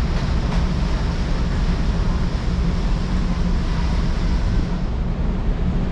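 Steady low rumble and rushing noise of the ferry Ogasawara Maru under way, heard from its open deck: engine drone and churning wake water, with wind on the microphone.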